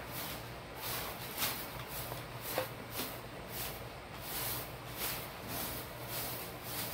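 Faint handling noise of a PVC pipe and a thin metal rod being turned over in the hands: soft knocks and rubbing every half second or so, over a steady low hum.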